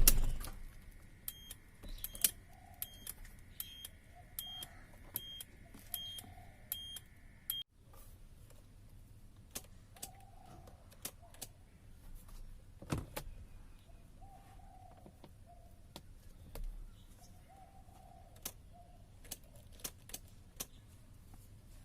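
Faint clicks and jangling of car keys as the ignition key and switch are handled. For the first seven seconds or so, a faint regular beeping of about one and a half beeps a second over a steady tone, which then cuts off suddenly.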